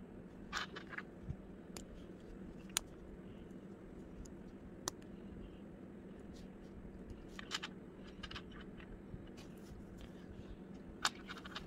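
Small plastic Lego bricks being pressed together and set down on a tabletop: scattered short, sharp clicks and taps at an uneven pace, a few in quick clusters, over a faint steady hum.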